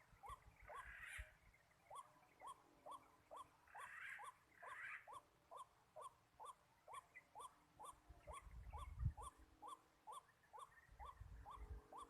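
A bird calling over and over: short upward-sliding notes, about two and a half a second, very regular. Brief rustles come near the start and about four seconds in.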